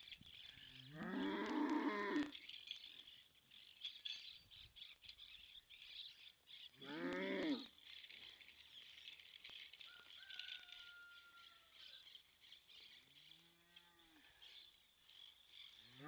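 A Holstein cow in labour, calving, mooing: two loud moos about a second each, about a second in and about seven seconds in, with fainter calls later.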